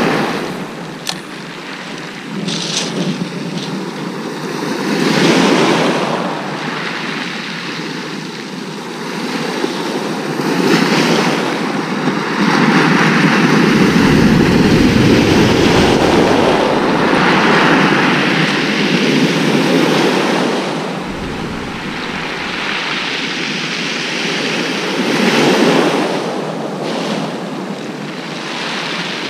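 Sea waves breaking and washing over a shingle beach, the wash swelling and easing every few seconds. Wind rumbles on the microphone for several seconds in the middle.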